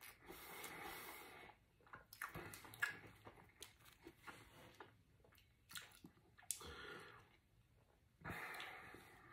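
A person quietly chewing a mouthful of burger, with small wet clicks of the mouth scattered through it.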